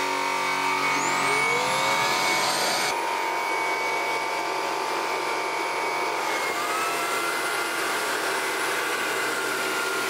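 Cecotec Conga RockStar 200 Elite cordless stick vacuum running, its motor spinning up with a rising whine about a second in, then a steady whirring hum. About two thirds of the way through its pitch shifts with a new rising tone as it is switched from the first to the second suction setting.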